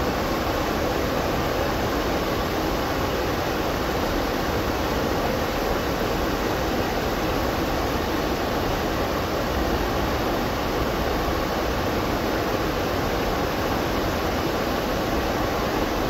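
Water falling steadily over a curved dam spillway and splashing onto rocks in the churning pool below: an even, unbroken rush.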